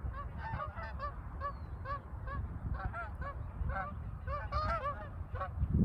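A flock of geese calling in flight: many short, repeated calls from several birds at once, overlapping with one another.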